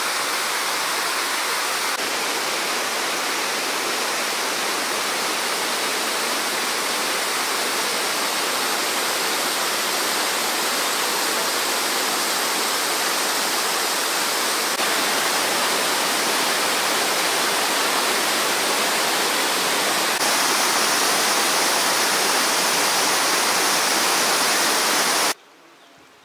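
Waterfall: a steady, loud rush of water falling over rocks, first from a small stepped cascade, then from a tall mountain waterfall. It steps up a little in loudness twice and cuts off abruptly near the end.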